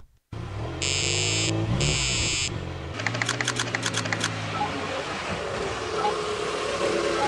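Car engine running steadily, with two short high electronic beeps about a second in, then a quick run of light clicks around three seconds in.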